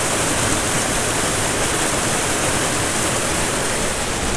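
Small stream cascading over rocks, a steady rushing splash of water.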